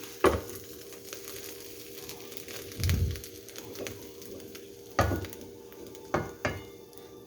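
Spatula knocking and scraping against a frying pan about five times as scrambled eggs are scraped out onto a plate, two of the knocks close together near the end. Under it, a faint sizzle from the still-hot pan and a steady hum.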